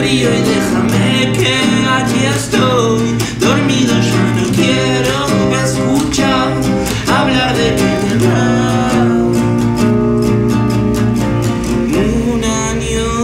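Live acoustic band music: acoustic guitars strummed in a steady rhythm with a man's voice singing the melody.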